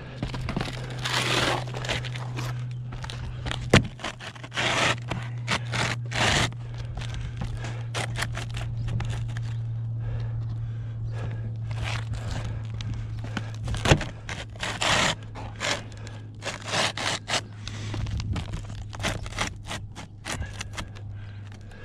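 Asphalt T-lock shingles scraping and rustling as they are slid and hooked into place by hand on a roof deck, in repeated strokes. Two sharp knocks stand out, about four seconds in and again about fourteen seconds in, over a steady low hum.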